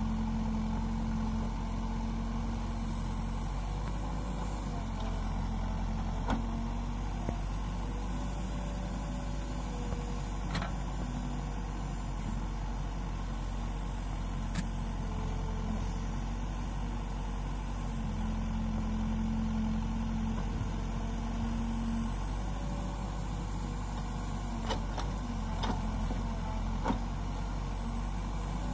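Backhoe loader's diesel engine running steadily while its rear bucket digs, with a higher tone that swells at times under load and a few sharp knocks.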